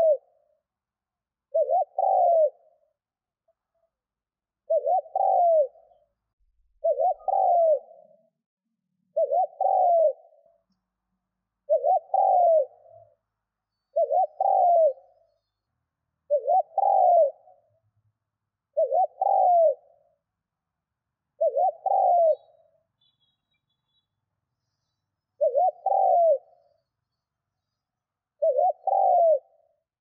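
Spotted dove cooing: a short two-part coo phrase repeated about every two and a half seconds, about a dozen times, with a longer pause a little past the middle.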